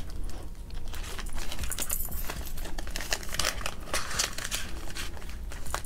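Paper bills rustling and a clear plastic zip pouch crinkling as cash is handled and tucked into a budget binder, with many small quick clicks and the light jingle of bells on a bracelet.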